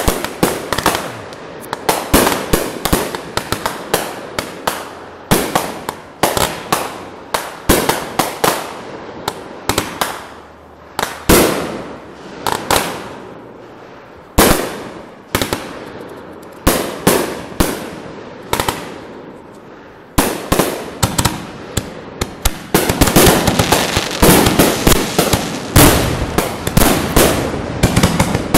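Consumer aerial fireworks going off: a long string of sharp bangs in quick clusters as the shells burst overhead. Over the last few seconds it thickens into a dense, rapid crackling barrage.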